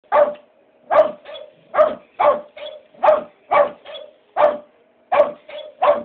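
A dog barking sharply and repeatedly, about nine barks, at a toy parrot that barks back with fainter barks in between.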